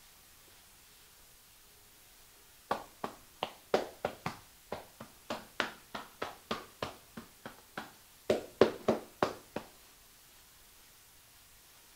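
A quick run of sharp hand taps on skin, about three a second and uneven in strength, as in percussive tapping massage. It starts about three seconds in and stops near ten seconds.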